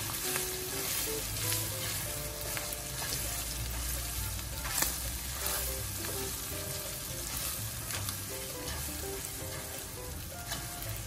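Minced pork lungs, liver and heart sizzling in a nonstick pan while a nylon spatula stirs them, with a few sharp pops, the loudest about five seconds in. The popping comes from the reduced, fatty bopis and is taken as the sign that it is getting close to done.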